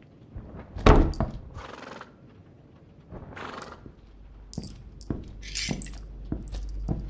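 Foley effects: a string of separate knocks and thuds with rustling and swishes, and a few short high metallic clinks. The loudest is a thud about a second in.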